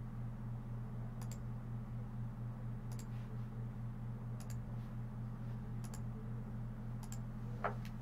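Computer mouse clicking faintly about every second and a half, with one sharper click near the end, over a steady low electrical hum.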